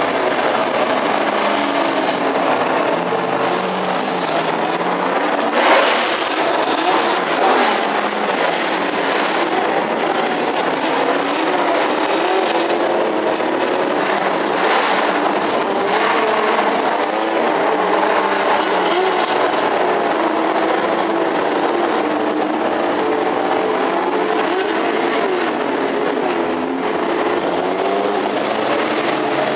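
Several sports-racing car engines running at low revs in the pit lane, overlapping, their pitch wavering up and down as the cars pull away. There is a sharp crack about six seconds in.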